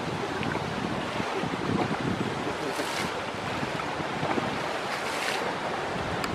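Shallow river water running, with wind noise on the microphone, and brief splashes of water twice, about three seconds in and about five seconds in, around an elephant bathing in the river.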